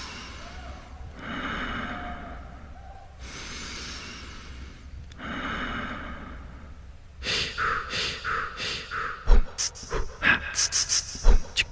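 Heavy, amplified human breathing: four long drawn breaths, then quick short panting breaths from about seven seconds in, with two dull thumps among them.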